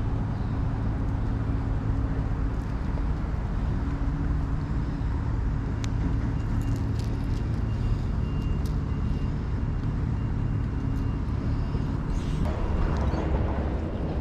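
Steady low engine hum, with a few faint clicks in the middle.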